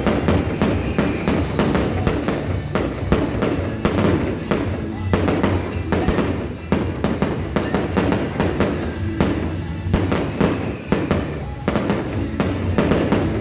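Fireworks bursting in quick, irregular succession, many reports every second, over loud music.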